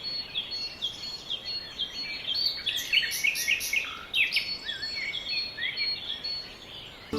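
Many small birds chirping and twittering, short overlapping calls with quick slurred notes, over a faint steady high tone.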